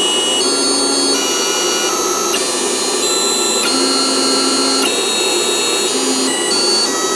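Stepper motors driving the linear stages of a small CNC machine plotting with a marker. They whine in several steady tones over a steady mechanical hiss, and the tones jump to new pitches every fraction of a second to about a second as each move changes speed and direction.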